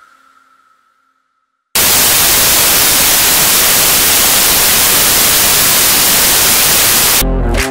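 Background music fades out, then after a short silence a loud, even hiss of white-noise static starts abruptly and holds steady for about five seconds. It cuts off suddenly near the end as music comes back in.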